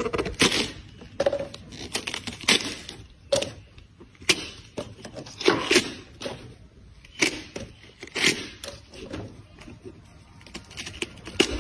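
Watermelon rind and flesh cracking and tearing as the melon is broken apart by hand: a run of irregular sharp cracks and crunches, some louder than others.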